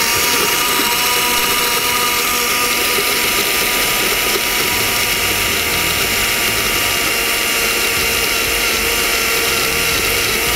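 Countertop blender motor running steadily at speed, blending borojó fruit, coconut milk and ice cubes into a purée in a glass jar. It is an even whine with a few constant pitches, without a break.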